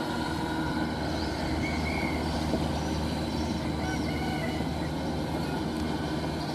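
Kubota DC93 combine harvester's diesel engine running steadily, with a few faint short high calls about two and four seconds in.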